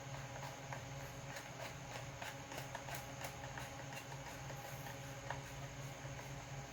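Irregular light clicks and rattles of hard plastic chainsaw covers being handled and worked apart, over a steady low hum.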